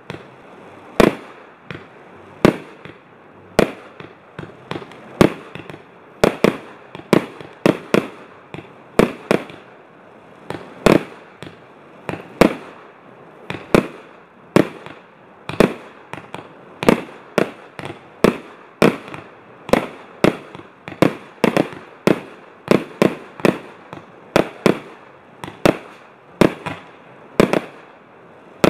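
Jorge Fireworks consumer barrage cake firing shot after shot: sharp bangs of bursting shells at an uneven pace of about one to two a second, with a steady hiss between them.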